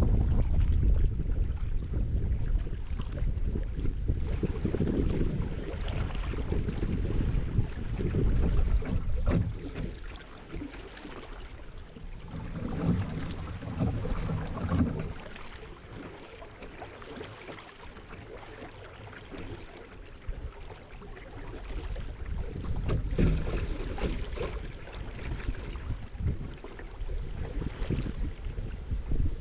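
Wind rumbling on the microphone of a kayak-mounted camera over river water lapping and splashing around a kayak being paddled. The wind eases about ten seconds in and picks up again after about twenty.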